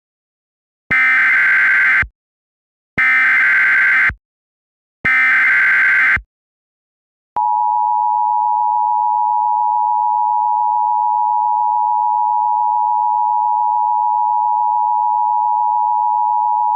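Emergency Alert System tones: three bursts of SAME digital header data, each about a second long and a second apart, announcing an alert. About seven seconds in comes the steady two-tone EAS attention signal (853 and 960 Hz), which holds unbroken.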